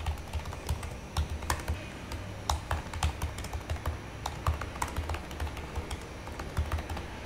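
Typing on a computer keyboard: an uneven run of quick keystroke clicks as a short message is typed out.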